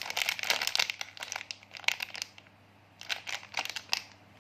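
Plastic packaging crinkling as fingers squeeze and feel a sealed blind-box package to guess its contents. The crackling comes in quick clusters, pauses for about half a second in the middle, then starts again.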